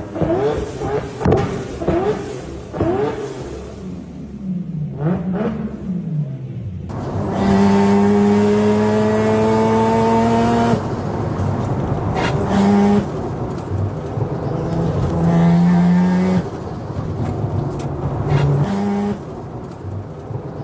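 Mazda RX-7 rotary engine's exhaust being revved: quick repeated blips in the first few seconds, then revs held up for a few seconds at a time with drops back down between.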